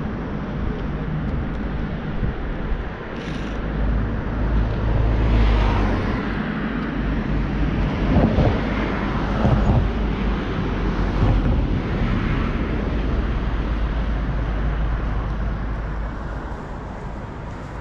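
City street traffic: cars passing along a wide boulevard, each swelling and fading over a steady low traffic rumble.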